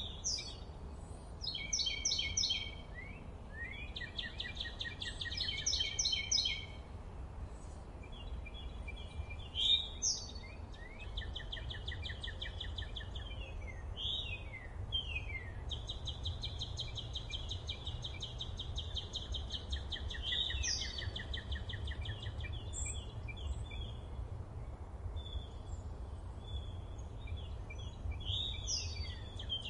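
Several songbirds singing, with rapid repeated trills and short falling whistles that overlap one another, over a steady low rumble.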